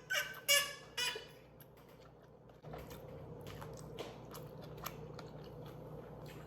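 Close-miked chewing of a soft breaded vegan 'fish' made from banana blossom, with faint wet clicks and smacks of the mouth. Brief pitched vocal sounds come in the first second.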